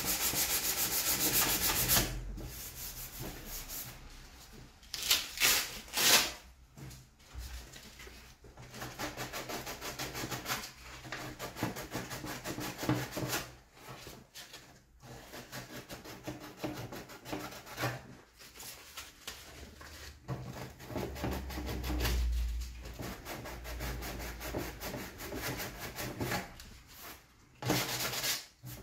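Hand sanding a plastic motorcycle fairing with a sanding sponge and folded sandpaper: quick back-and-forth rubbing strokes, loudest in the first two seconds, then in shorter runs with brief pauses.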